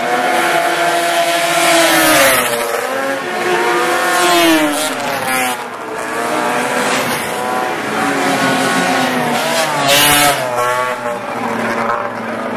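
Several vintage racing snowmobiles' two-stroke engines running at high revs as the sleds race past one after another. Their pitches overlap, and each rises and falls as a sled goes by.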